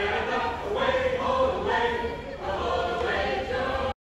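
A group of voices singing together, choir-like, with several notes held at once, cutting off abruptly near the end.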